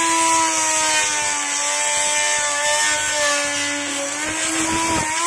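Electric mini grinder fitted with a small circular saw blade, its motor whining as the blade cuts into plywood. The pitch sags slowly under the load, then rises again near the end.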